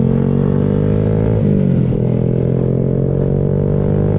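Honda Grom's single-cylinder engine through an aftermarket Kemimoto exhaust, pulling under acceleration. Its pitch climbs, drops sharply about a second and a half in as it shifts up a gear, then climbs again.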